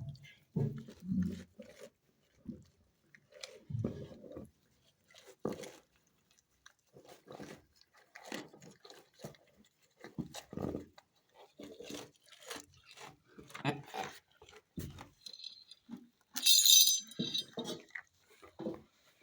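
Goats chewing and crunching feed, in irregular short crunches, with a louder, harsher burst about sixteen seconds in.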